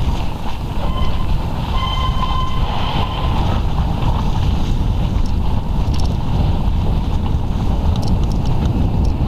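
Wind buffeting a moving camera's microphone and the steady rumble of a bike rolling fast down a snowy track. Two short high squeals come about one and two seconds in.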